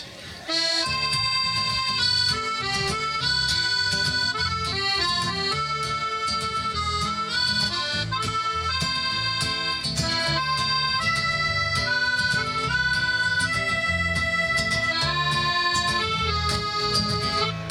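Accordion playing an instrumental introduction: a melody of held reedy notes over sustained bass chords. It begins about half a second in.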